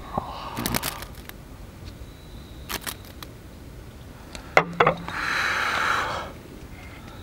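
Beer poured from a glass bottle into a pint glass, with small clinks and glugs as the pour finishes. About four and a half seconds in, the bottle is set down on the table with a couple of clinks, followed by a hiss lasting just over a second.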